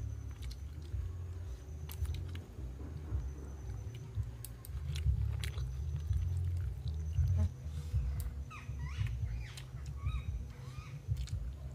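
Eating by hand from a banana leaf: fingers squeezing and mixing rice with fish curry, with chewing, over a steady low rumble.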